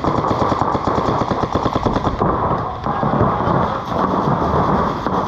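Reball paintball markers firing in rapid, overlapping strings of shots, many a second, without a break.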